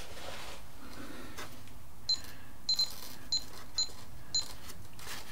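Radio-control transmitter beeping as its settings are stepped through on the menu: six short, high beeps beginning about two seconds in, roughly every half second, two of them close together.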